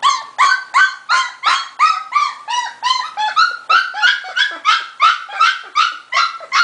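A young puppy crying in a fast, steady series of short, high-pitched yelping whines, about three or four a second.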